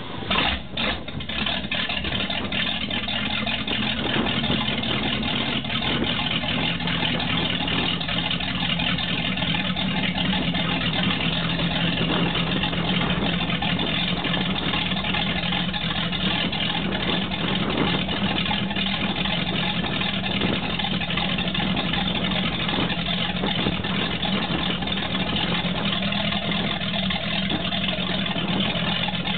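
The V8 engine of a 1994 Baja 272 powerboat, driving a MerCruiser Bravo stern drive, idles on the trailer to warm up. It runs unevenly for the first second or so after starting, then settles into a steady idle. Cooling water is fed from a garden hose, and exhaust water splashes out of the drive around the propeller.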